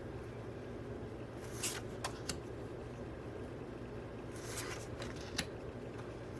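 Postcards and a cardboard box being handled: short bursts of paper rustling with a few light taps, over a steady low room hum.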